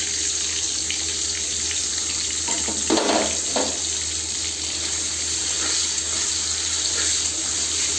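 Freshly washed gobindobhog rice sizzling steadily in hot ghee and mustard oil in a wok, the wet grains spitting in the fat, with a brief louder stirring or scraping about three seconds in.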